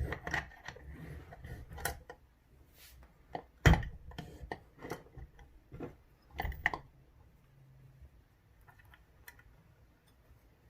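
Metal lock-picking tools clicking, scraping and knocking against a dimple euro cylinder as tension and pick are set in the keyway. There are sharp knocks at the start, about a third of the way in and about two thirds in, with softer ticks between them, and the sounds fade to faint ticking near the end.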